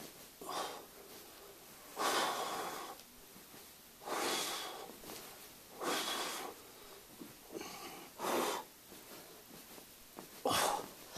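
A man breathing out hard in time with push-ups: a forceful breath about every two seconds, six in all.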